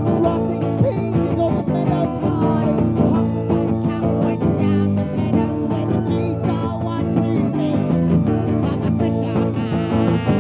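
Guitar-led rock song playing, a full band mix at a steady level.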